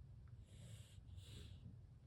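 Cat breathing faintly with raspy, wheezing breaths, two breaths about halfway through. This is the laboured breathing of a cat with a lung infection.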